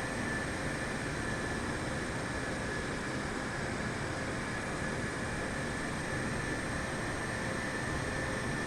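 Jet airliner engines running steadily: an even rushing noise with a faint, steady high whine.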